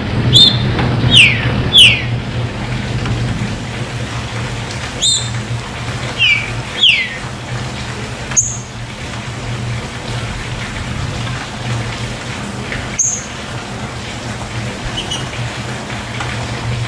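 Green-winged saltator (trinca-ferro) singing two short phrases of three falling whistled notes, then giving a few sharp high chips. Under it runs a steady rush of running water.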